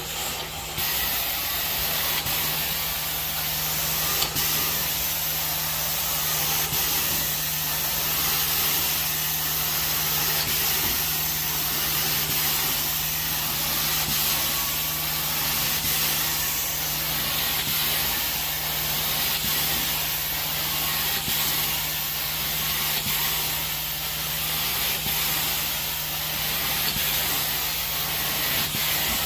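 Four-jet titanium carpet-cleaning wand spraying and sucking, a steady loud hiss of spray and vacuum airflow over a constant low machine hum. The hiss jumps up just under a second in as the wand starts working.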